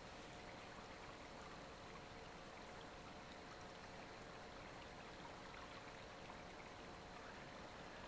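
Faint steady rush of a small river flowing, with a faint steady hum underneath.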